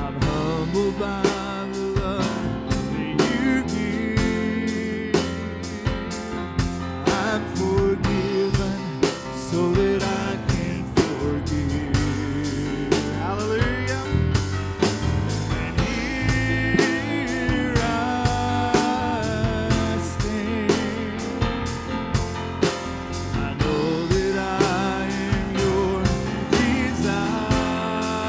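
Live worship band playing an instrumental passage with a steady drum beat under sustained melodic lines.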